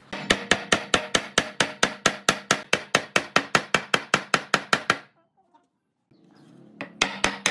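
A fast, even series of sharp knocks, about five a second, that stops abruptly about five seconds in and starts again after a gap of about two seconds.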